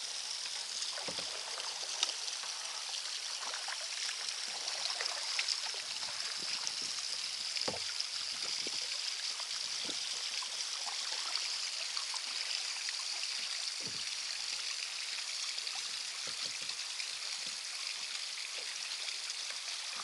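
Spring water trickling steadily down a rock face into the river, with a few small splashes.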